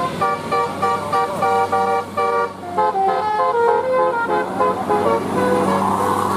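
Basuri 'telolet' musical air horn on a bus playing a quick tune of short, separate notes, over the steady drone of the bus engine. The notes thin out near the end as the engine drone grows louder.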